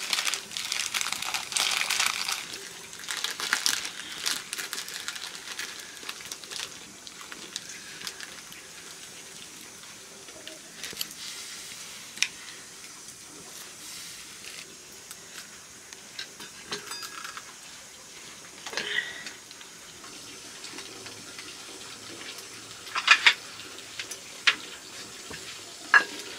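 Water splashing, as in pouring or washing in the kitchen, for the first few seconds, then a fainter steady hiss with scattered clinks and knocks of pots and utensils.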